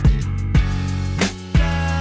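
Background music with a steady beat: drum hits about every half second under held instrument notes.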